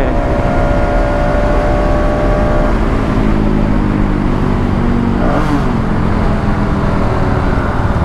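Motorcycle engine running while riding, with heavy wind rumble on the microphone; the engine note holds steady, then shifts lower about three seconds in.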